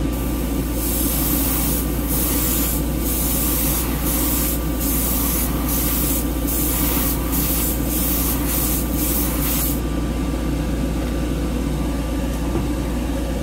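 Gravity-feed airbrush spraying paint in a series of hissing bursts as the trigger is pulled and eased, the bursts coming quicker near the end before the hiss stops. Beneath it runs the steady low hum of the spray booth's exhaust fan.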